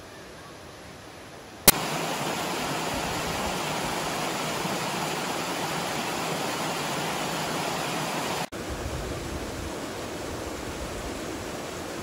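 Rushing water of a mountain stream cascading over rocks: a faint hush, then a click and a sudden loud, steady rush about two seconds in. Past the middle it breaks off and gives way to the slightly quieter, deeper steady splash of a small waterfall.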